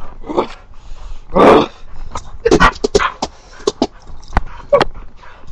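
Dog making short growls and whimpering yips while play-fighting with a person's arm, a string of brief bursts with the loudest about one and a half seconds in, mixed with scuffling and light knocks.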